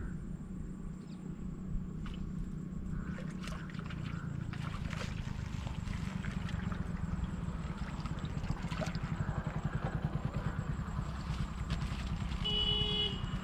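Motorcycle engine running close by, its low rumble getting louder toward the end, with a short horn beep about a second before the end.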